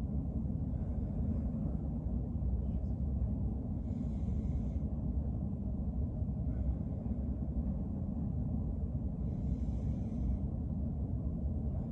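A person breathing slowly and deeply in and out for a stethoscope lung exam, faint airy breaths every two to three seconds over a steady low rumble.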